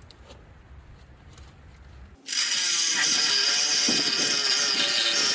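Faint background at first; then, a little over two seconds in, a power tool starts cutting metal and runs with a loud, steady, harsh cutting noise.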